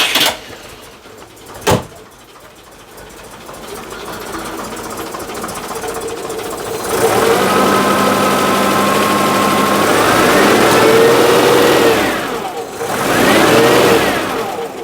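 Citroen GSA's air-cooled flat-four engine running and being revved: the revs climb about seven seconds in and are held for several seconds, then drop and are raised briefly again near the end. Under it is the rough 'gremlin' noise that is being traced to a failing alternator. A single sharp click sounds early on, before the engine picks up.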